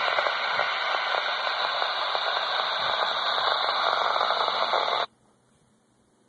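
Handheld amateur radio transceiver's speaker hissing with static while tuned to the ARISSat-1 satellite downlink, then cutting off suddenly about five seconds in.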